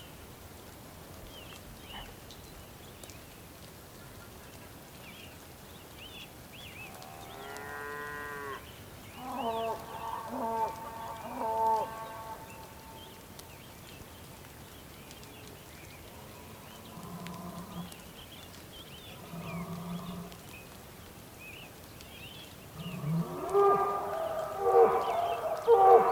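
Bulls calling with long, pitched moos. One call comes about a quarter of the way in, then a louder run of calls follows, then two softer low calls. Several loud overlapping calls build near the end.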